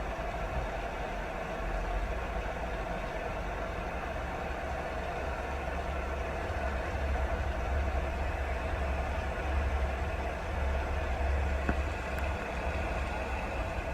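Steady rain noise with a low rumble underneath.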